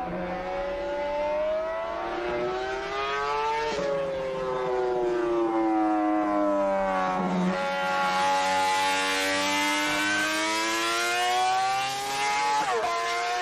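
Honda RC166 250 cc inline-six racing engine at very high revs on track, a high wail. It climbs, drops sharply at a gear change about four seconds in, sinks for a few seconds as the bike leans through a corner, then climbs again before another sharp drop and rise near the end.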